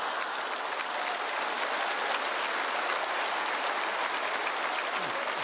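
Theatre audience applauding steadily after a punchline.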